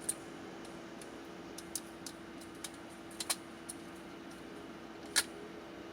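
Scattered small clicks and taps of bolts and carbon-fibre frame parts being handled during assembly, about half a dozen, the sharpest about five seconds in, over a faint steady hum.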